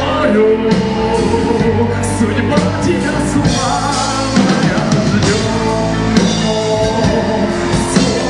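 Live rock band playing, with drum kit and guitar carrying the music, and singing in the mix.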